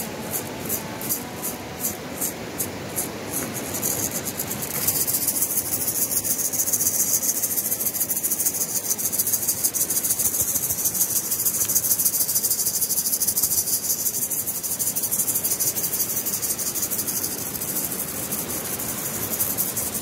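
Insects chirping: a high chirp repeating about two or three times a second, joined from about five seconds in by a dense, continuous high trill.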